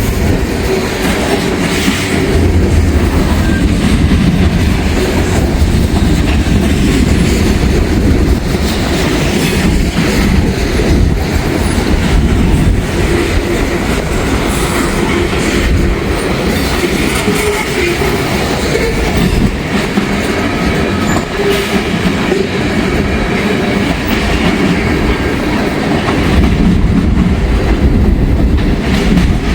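Freight cars of a long Norfolk Southern mixed manifest train rolling past, with wheels clicking over the rails throughout. Strong gusty wind buffets the microphone.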